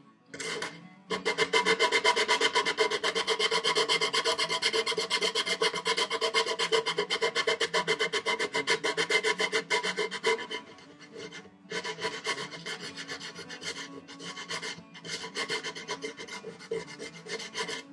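Sandpaper wrapped around a fingertip rubbing fast back and forth in a chiselled wooden tray handle, rounding and smoothing its edges. The strokes are steady and loud at first, then lighter and broken by short pauses after a brief stop about eleven seconds in.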